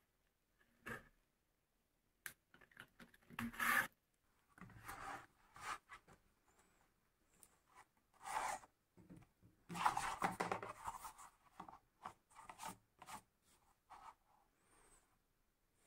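Irregular rubbing and rasping strokes of leather being worked by hand: thread drawn through stitching holes in hand-sewn leather, then a stitched leather panel rubbed and shifted about on a cutting mat.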